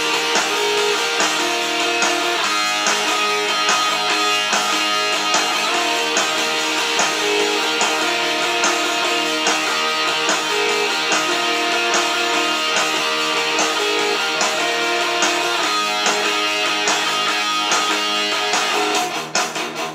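Instrumental break of a rock song: strummed electric guitar over bass and drums, with no singing. About a second before the end it drops quieter to a sparser, evenly spaced beat.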